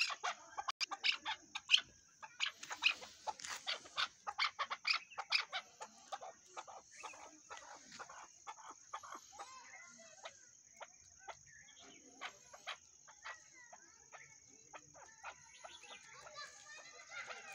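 Chukar partridge calling: a fast run of short, clucking chuck notes for the first six seconds or so, then scattered single notes.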